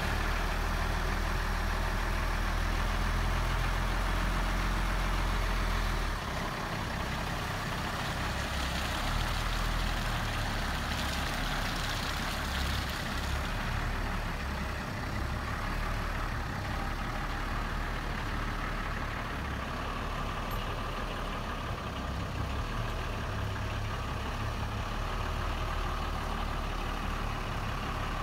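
1983 International 1954 grain truck's engine running steadily. Its note changes about six seconds in as the truck moves off and drives slowly past. A brief hiss comes about eleven seconds in.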